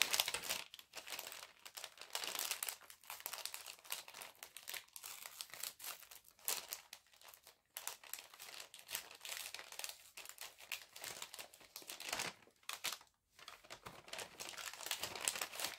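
Crinkly packaging rustling and crackling as it is handled and unwrapped, a rapid irregular crackle with two short lulls, about halfway and near the end.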